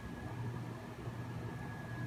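Steady low background hum with a faint, thin high whine running through it, and no distinct event.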